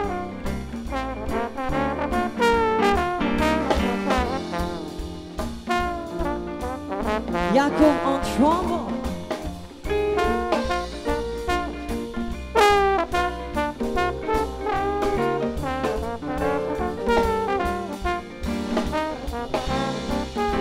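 Live jazz band playing, a brass horn section carrying the lines over upright bass and drum kit, with some sliding notes about a third of the way in.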